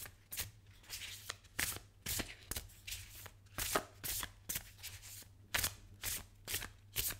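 A tarot deck (The Wild Unknown Tarot) being shuffled by hand: short, crisp flicks of cards slipping against cards, about three a second, unevenly spaced.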